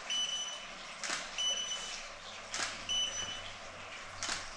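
A camera shutter firing about every one and a half seconds, three shots in all. Each shot is followed a moment later by a short, steady, high beep from the studio flash, signalling that it has recycled and is ready to fire again.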